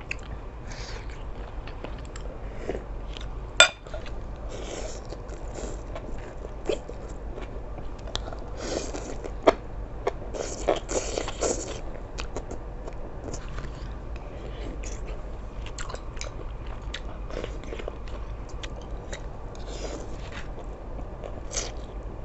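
Close-up eating sounds of a person biting and chewing food, in irregular short bursts, with one sharp click about three and a half seconds in.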